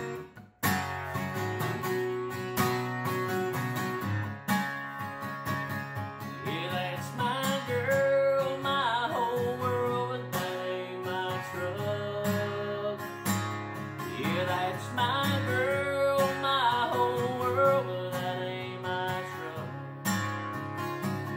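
A man singing a country song to his own strummed Takamine acoustic guitar. The guitar runs throughout after a brief dropout just under a second in, and the voice comes in twice with held, sliding notes: about seven seconds in and again about fifteen seconds in.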